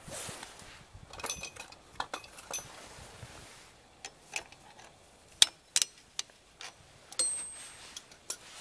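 Irregular metallic clinks and taps from hand tools and parts being handled at a car's rear wheel hub and drum brake backing plate. Two sharp clinks stand out past the middle, and a brief high ringing follows a metal strike near the end.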